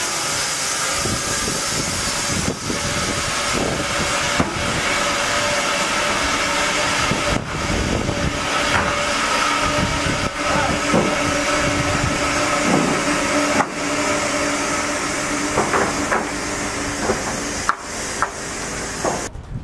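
TRF SKR 2 twin-saw edging machine running and ripping boards, a loud steady saw noise with a few held tones. Several knocks come from boards being handled on the steel table. The sound cuts off abruptly just before the end.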